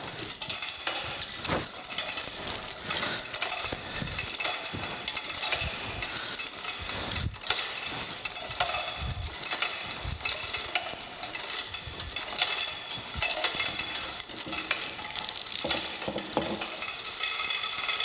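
Manual chain hoist being worked to lower a heavy cast-iron planer table: the hoist chain rattles and clinks without a break, swelling and fading with each pull, with an occasional knock.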